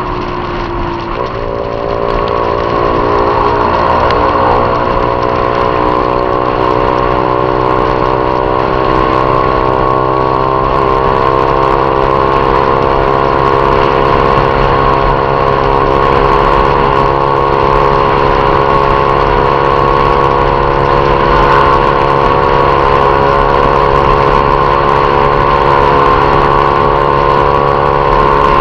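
Honda Titan 150 single-cylinder four-stroke motorcycle engine, fitted with a Viúva Negra aftermarket exhaust, running under way. Its pitch dips right at the start, climbs over the next few seconds as it accelerates, then holds steady at cruising speed.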